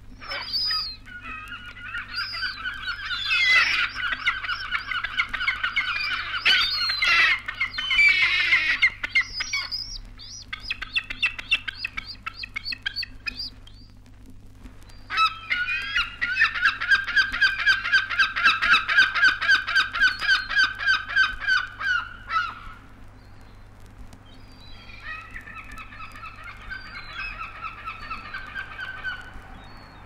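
Black-backed gull (kelp gull) calling: long bouts of rapid, repeated notes, with short gaps between bouts and the last bout fainter.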